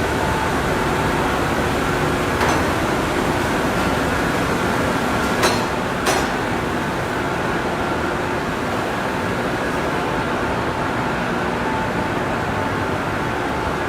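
Steady machinery and ventilation noise of a manufacturing shop floor, with a faint constant hum and three short clicks or knocks.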